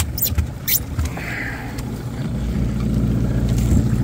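Evinrude 115 outboard motor running steadily as a low hum that grows louder about halfway through. A few sharp clicks come near the start.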